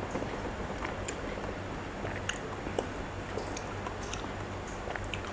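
Close-up wet chewing of a mouthful of raw oyster: soft scattered smacks and clicks of the mouth.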